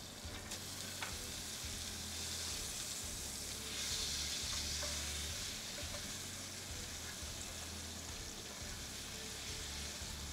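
Ground chicken frying in browning butter in a nonstick skillet: a steady sizzle that swells louder about four seconds in, with light clicks and scrapes of the spatula as the block is turned.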